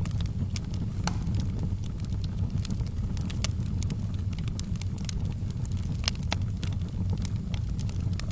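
Fire burning in a fireplace: irregular sharp crackles and pops over a steady low rumble of the flames.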